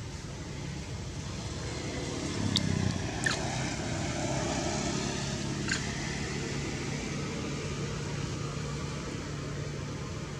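Steady low outdoor rumble with a faint hum, like distant road traffic, broken by three short high chirps a few seconds in, the second a quick falling squeak.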